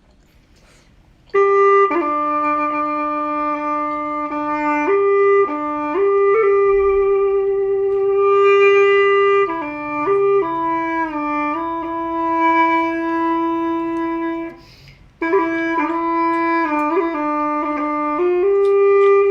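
Background music: a single melody line of long held notes with small slides between them, in a reedy, woodwind-like tone. It starts about a second in and breaks off briefly about three-quarters of the way through.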